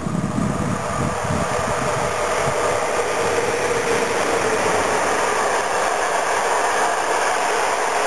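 Electric locomotive hauling passenger coaches passing close by: steady rushing noise of steel wheels on the rails, building over the first couple of seconds as it draws level and then holding. Wind buffets the microphone in the first second.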